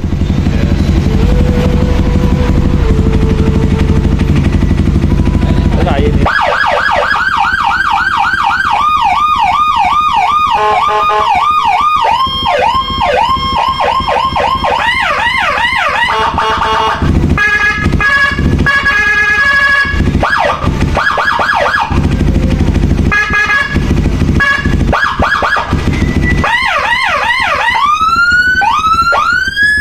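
Whelen 60-watt electronic siren on a Honda CB150R motorcycle, cycling through its tones. Through the first six seconds only the motorcycle's engine is heard running. The siren then starts with a fast rising-and-falling yelp, moves on to choppy pulsed and steady tones, and ends with long rising wails, with the engine still running underneath.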